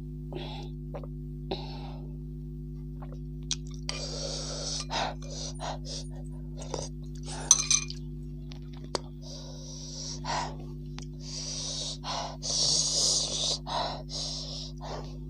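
A person slurping soup and drawing repeated sharp, hissing breaths through the mouth, the kind spicy food brings on. The longest run of hissing comes near the end. A bowl clinks down about seven and a half seconds in, over a steady low hum.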